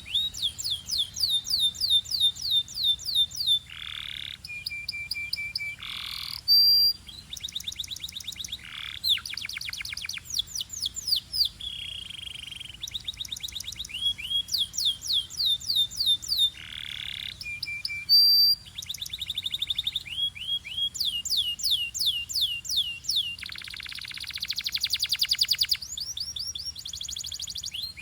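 Canary singing a long, continuous song: rolls of fast repeated falling notes and rapid trills, broken by a few lower, buzzier rolls.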